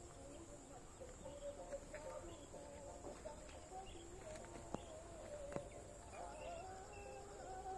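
Faint outdoor ambience: a steady high-pitched drone, typical of insects, under faint wavering tones in the middle range. Two sharp clicks come a little past the middle.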